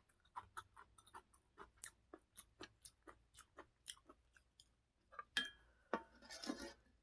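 Close-miked mouth sounds of someone chewing a piece of eel sushi: soft wet clicks, about three or four a second, then a few louder, noisier sounds in the last two seconds.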